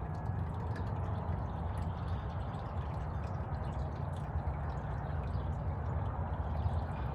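Water running and splashing steadily, with scattered small drips, where a hummingbird is bathing.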